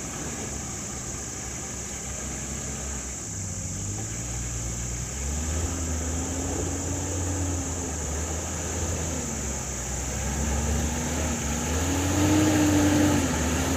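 Off-road 4x4's engine running, steady at first, then revving up about five seconds in, easing off, and revving up again near the end.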